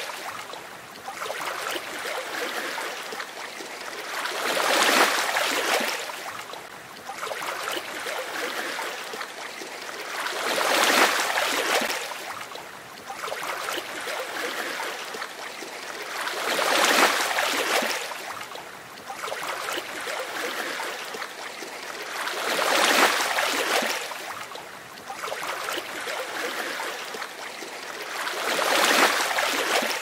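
Ocean waves breaking and washing up a sandy beach: a swell of surf about every six seconds, with softer hissing wash between.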